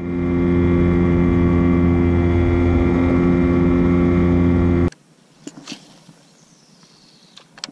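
Small outboard motor running steadily on an inflatable boat under way. It stops abruptly about five seconds in, leaving quiet outdoor background with a few faint ticks.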